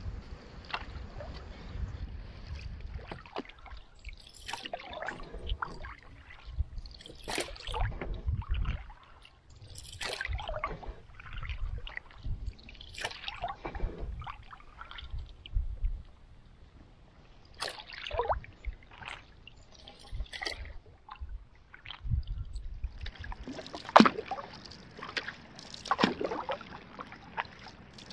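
Canoe paddles dipping and pulling through calm lake water in irregular strokes, with splashes and drips off the blades, the loudest splashes near the end. A low rumble runs underneath through the first half.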